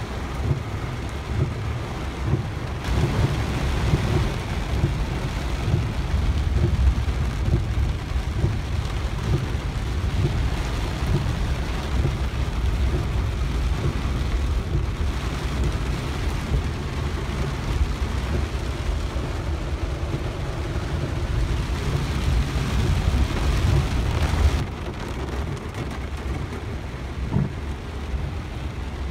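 Heavy rain on a car's roof and windshield, heard from inside the cabin, over a steady low rumble. About twenty-five seconds in the sound drops and turns duller.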